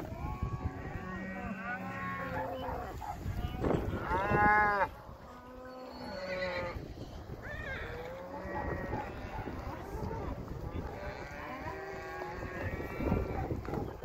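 A herd of beef cattle mooing and bawling as they are driven along, many overlapping calls one after another, the loudest about four seconds in.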